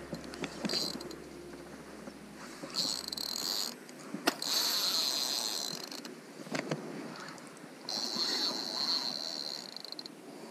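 Penn Spinfisher spinning reel's drag buzzing in three runs, a short one, a longer one of about two seconds and another near the end, as a hooked redfish pulls line off against it.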